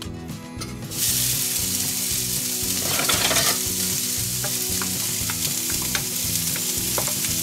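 Diced bacon frying in a hot cast-iron skillet: a steady sizzle that starts abruptly about a second in, with a brief louder flare around three seconds in.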